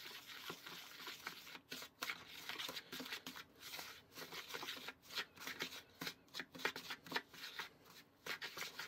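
Wooden spoon stirring and scraping a crumbly chocolate cake mix, just moistened with a little milk, around a plastic bowl: quick, irregular scrapes, several a second.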